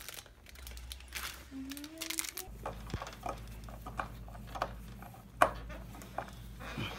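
Irregular small clicks and taps of a screwdriver driving a screw into front-door lock hardware, with one sharper knock about five and a half seconds in.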